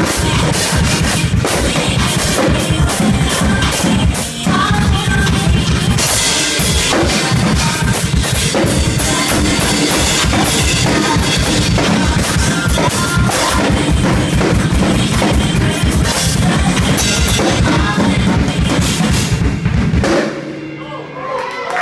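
A Pearl drum kit played fast and hard, with dense bass drum, snare and cymbal strokes; the playing stops near the end.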